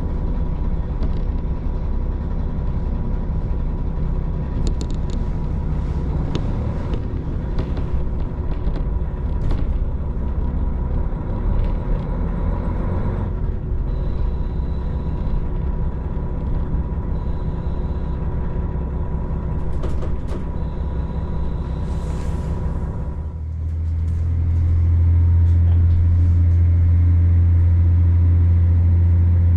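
Interior of a KiHa 40 diesel railcar: a steady rumble with faint steady tones. About three-quarters of the way in, a much louder, steady deep drone sets in.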